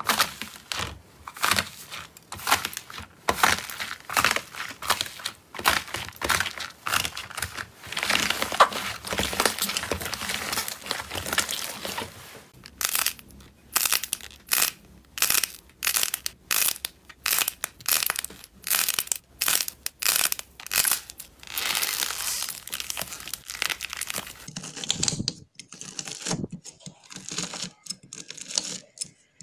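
Slime being handled by hand, crackling and crinkling: a crusted iceberg slime crackling densely as fingers press through its crust, then a run of separate crackles about two a second as slime is squeezed. Near the end a knife cutting through bead-filled slime gives coarser, deeper crunches.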